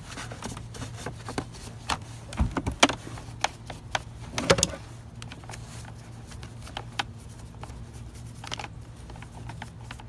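Handling noise from cleaning a plastic canister vacuum cleaner: scattered clicks and light knocks as its body and power plug are handled and brushed, with a few louder knocks about two and a half to three seconds in and again at four and a half seconds, over a steady low hum.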